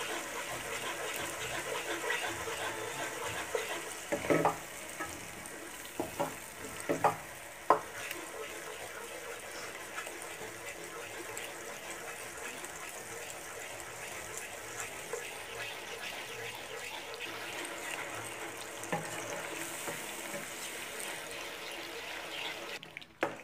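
A wooden spoon stirring thick ground-tomato masala as it fries in oil in a non-stick pan, with a steady sizzle. A few knocks of the spoon against the pan come between about four and eight seconds in.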